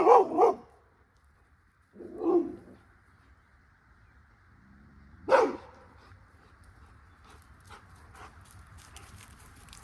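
A dog barking: a few short barks a couple of seconds apart, the first ones loudest, followed by faint scattered clicks.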